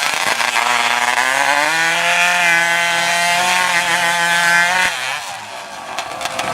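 Racing hot saw running flat out through a log in a timed three-cut race. Its engine pitch climbs over the first two seconds, holds high and steady, then drops off about five seconds in as the cuts finish.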